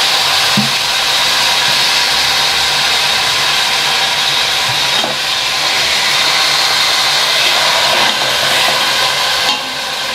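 Seasoned chicken breasts sizzling in hot olive oil in a stainless steel pan: a loud, steady hiss, with a couple of faint knocks of metal tongs as another piece is laid in.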